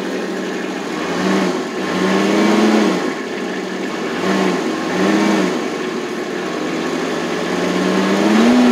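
Kubota RTV X1100C's 0.9-litre three-cylinder diesel engine idling and being revved with the throttle pedal. It gives a few short blips that rise and fall back to idle, then a slower climb near the end.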